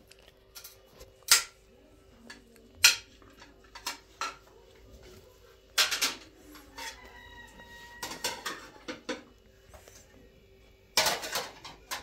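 Dishes and pots clattering: a series of sharp, irregularly spaced knocks and clinks, with a short ringing tone about seven seconds in.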